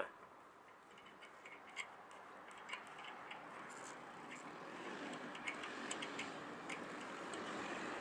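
Faint, scattered metal clicks and ticks as an adapter is clamped onto the feed flange of a microwave dish antenna, over a faint hiss that slowly grows louder.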